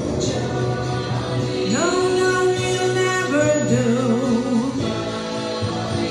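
A woman singing into a handheld microphone over backing music. Her voice comes in about two seconds in with a rising scoop, then holds notes with vibrato.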